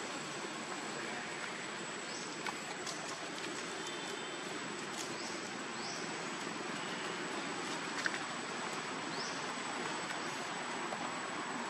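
Steady rushing outdoor background noise, with a constant thin high tone and a few short, high, rising chirps scattered through it.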